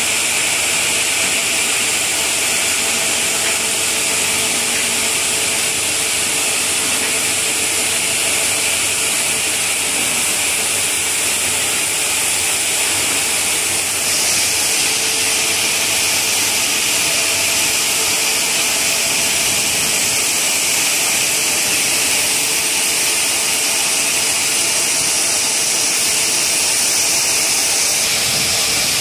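Overhead stone block-cutting saw cutting through a granite block under water cooling: a loud, steady, hissing cutting noise with a faint machine hum beneath, shifting slightly about halfway through.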